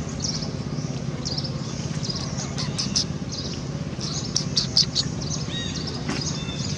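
Small birds chirping in quick, repeated short calls, with a few sharp clicks in the middle, over a steady low hum.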